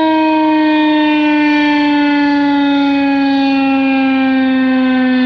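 Federal Signal 2001-130 electromechanical outdoor warning siren sounding, very loud: one steady pitched tone that slowly falls in pitch.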